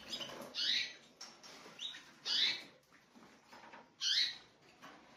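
Spanish Timbrado canaries chirping, in three short bursts about two seconds apart.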